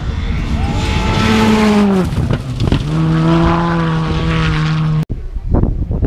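Rally car engine at high revs on a gravel stage: the pitch falls as the driver lifts, breaks briefly, then holds steady at high revs for about two seconds. It cuts off abruptly about five seconds in, giving way to another engine with sharp cracks.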